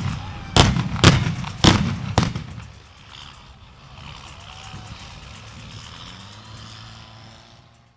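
A string of pyrotechnic explosions, four sharp blasts in the first two seconds or so, followed by a quieter steady rumble with crackle until the sound cuts off near the end.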